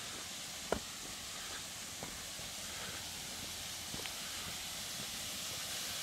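Steady rushing hiss of a distant waterfall, growing slightly louder, with a few footsteps on a stone-paved path; the clearest step comes about a second in.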